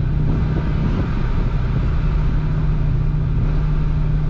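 Suzuki Vitara's engine and tyre noise heard inside the cabin while cruising on a paved road: a steady low engine drone over road rumble.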